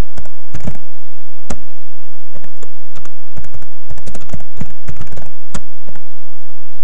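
Typing on a computer keyboard: irregular keystrokes, with a few louder strikes among them.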